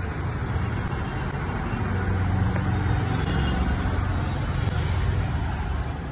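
A motor vehicle passing on the street, a low engine and road rumble that swells over the first couple of seconds and fades toward the end.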